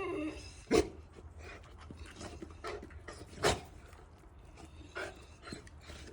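Dogs waiting to be fed: a falling whine right at the start, then two short, loud barks about three seconds apart, with a softer one later and light clicks and shuffling in between.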